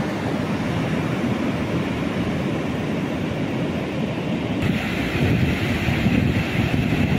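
Ocean surf breaking on a sandy beach, a steady rushing noise mixed with wind buffeting the microphone.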